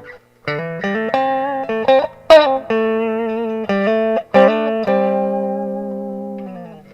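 Dean C350F electric guitar played clean through a Crate CR-280 150-watt amplifier: a short phrase of picked single notes with some vibrato, the sharpest pick attack a little over two seconds in. It ends on a long note that rings and slowly fades.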